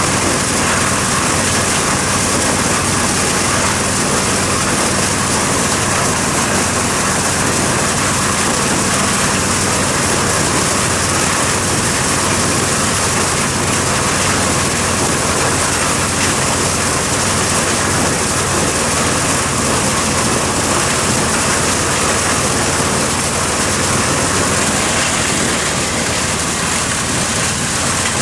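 Corn sheller (thresher) running steadily: an engine's even drone under a dense, constant hiss of the threshing machinery.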